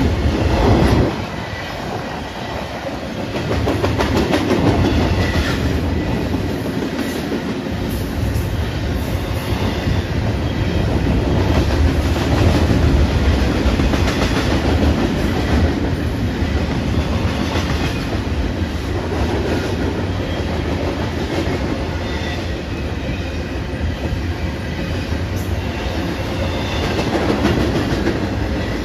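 A BNSF double-stack intermodal freight train's well cars rolling past: a steady rumble of steel wheels on rail with clickety-clack over the track. The sound drops briefly just after the start, then builds back up.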